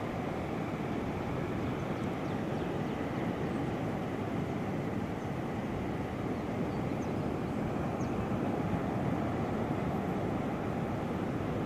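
Steady rush of ocean surf, an even, unbroken wash of noise.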